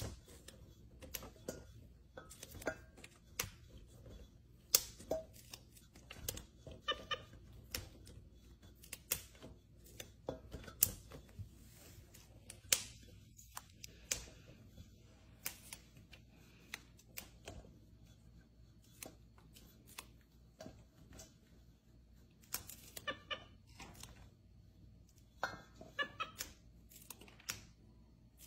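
Fresh green beans being snapped by a capuchin monkey's hands: irregular sharp snaps, about one or two a second.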